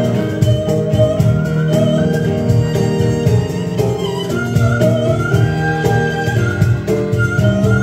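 Korean traditional (gugak) instrumental ensemble playing: a melody gliding from note to note over plucked strings and a steady pulse.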